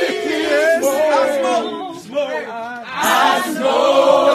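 A group of men singing and chanting together without accompaniment, several voices overlapping loosely; the singing drops back about two seconds in and comes in louder again about a second later.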